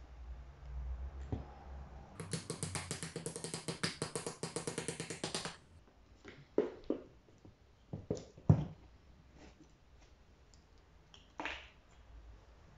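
A fast run of sharp, evenly spaced clicks lasting about three seconds, then a few separate light knocks and taps as a screwdriver and small metal carburettor parts are handled on the workbench.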